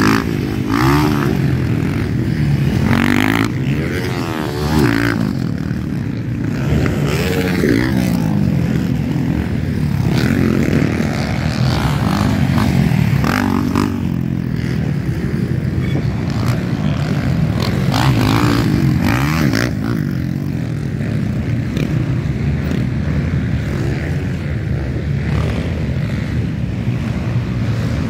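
Motocross bike engines revving as riders take a corner, the pitch rising and falling over and over as they back off and open the throttle. At times more than one bike is heard at once.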